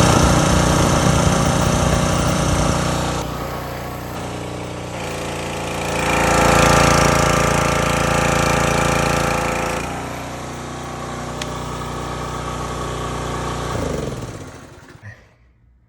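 Small gas engine of a pressure washer running under load, its sound stepping down and up a few times. About fourteen seconds in it shuts off and winds down to a stop.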